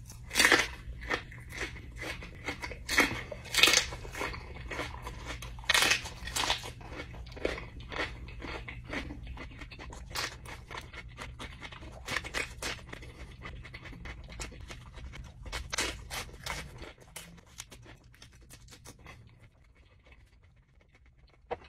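Close-up crunching and chewing of a raw green chili pepper stuffed with chopped hot peppers and sauce. Loud crisp bites come first, then steady chewing that grows softer and dies away near the end.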